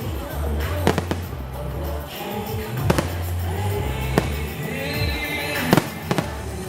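Fireworks going off in about six sharp bangs, one every second or so, over loud music with a heavy bass line.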